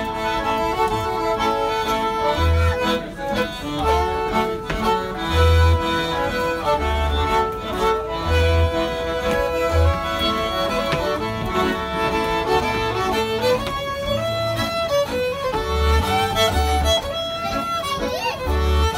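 Fiddle and piano accordion playing a tune together, the fiddle carrying the melody over short low bass notes from the accordion that recur every second or two.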